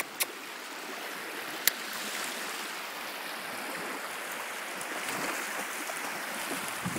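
Small waves lapping and washing on a sandy lake shore, a steady wash of water. A few sharp clicks stand out in the first two seconds.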